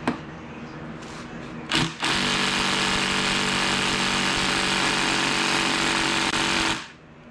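Cordless impact wrench hammering for about five seconds on the nut of a heated V-belt pulley on a small engine's crankshaft, trying to break it loose, then stopping abruptly. It opens with a click and a brief blip from the trigger. A steady low hum runs underneath.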